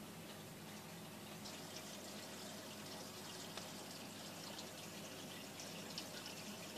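Faint aquarium water trickling with a fine crackle, thickening about a second and a half in, over a low steady hum from the tank's pump.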